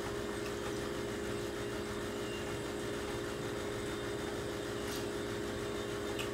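Steady room hum and whir with a faint hiss, and two small clinks of forks on plates near the end.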